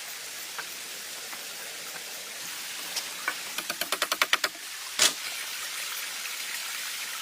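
A quick run of light knocks or taps, about eight to ten a second, over a steady hiss, followed a little later by one sharper, louder knock.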